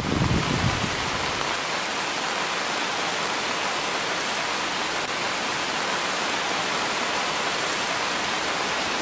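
Heavy rain pouring steadily, a dense even hiss, with a low rumble in about the first second.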